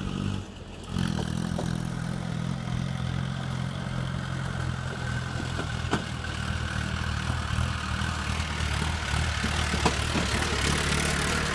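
Vehicle engine running steadily, with a few sharp knocks from the vehicle's body, typical of driving over a rough road.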